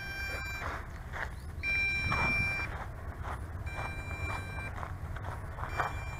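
MJX Bugs 2 W quadcopter's low-voltage warning: long electronic beeps of about a second each, repeating about every two seconds, signalling a depleted flight battery after the low-voltage return-to-home landing. A low wind rumble runs underneath.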